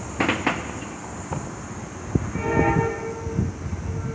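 Amtrak P42 diesel locomotive's horn sounding a chord blast about halfway through, over the rumble of the passing train, with a couple of sharp knocks near the start.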